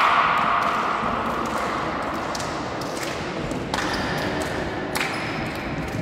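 Players' cheering in a large sports hall, fading out within the first second, then a few sharp, echoing knocks about a second apart, like a volleyball bouncing on the court floor or hands clapping.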